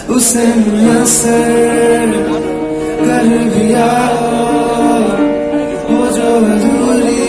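Male voice singing a Bengali song to upright piano accompaniment, amplified through a concert PA and recorded from among the audience; the music comes in loud and suddenly at the start.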